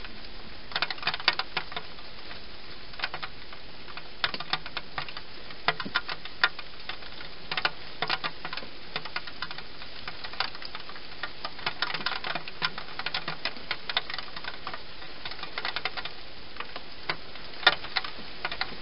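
European hedgehog eating from a dish inside a plastic feeding box, chewing in irregular runs of quick, crunchy clicks over a steady background hiss.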